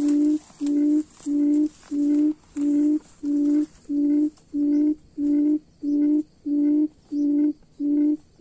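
Decoy quail calling, a low hooting note repeated at a steady pace, about one and a half notes a second, to lure wild quail to the trap.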